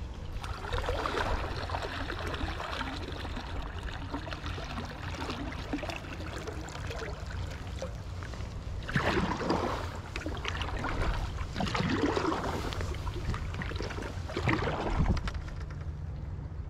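Paddle strokes of a folding sea kayak: the blades dipping and pulling through calm water with splashing and dripping, and water running along the hull. The stroke sounds swell and fade, louder about a second in and again several times in the second half.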